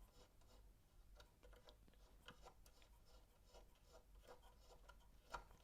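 Near silence with faint, irregular small clicks and light rubbing from hands handling small turntable parts, one slightly louder click near the end.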